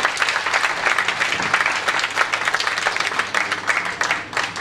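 Audience applauding, dense at first and thinning out near the end.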